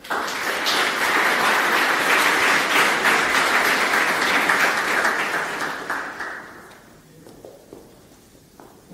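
An audience applauding, starting all at once and dying away about six to seven seconds in.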